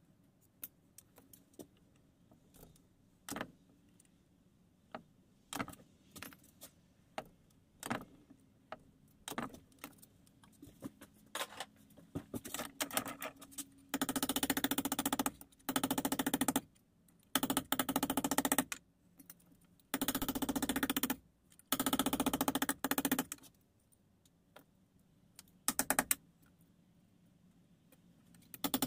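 Rapid hammer blows on a small piece of scrap steel clamped in a bench vise, in four bursts of a second or two each about halfway in and a short one near the end. Before that, scattered light clicks of small metal pieces being handled and tapped.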